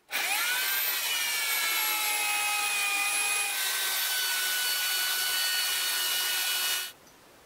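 Electric drill spinning up and boring through the metal frame of a small C-clamp with a twist bit, a steady whine whose pitch shifts once about halfway through, then stopping suddenly near the end.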